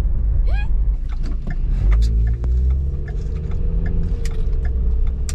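Road and engine noise inside a moving car's cabin: a steady low rumble, joined about two seconds in by an engine drone that holds a steady pitch, rising slightly and then easing.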